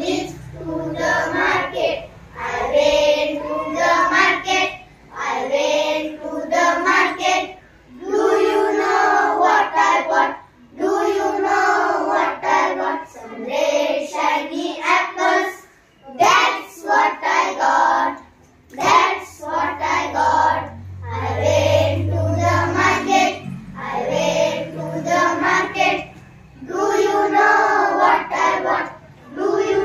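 A group of young schoolchildren singing an English action poem together in unison, line by line, with short breaks between phrases.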